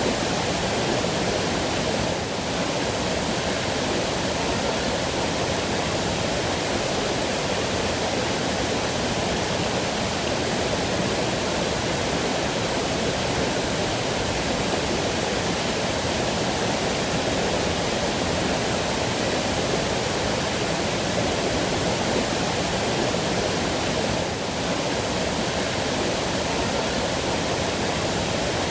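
Waterfall: steady, even sound of falling water, dipping slightly for a moment about two seconds in and again near the end.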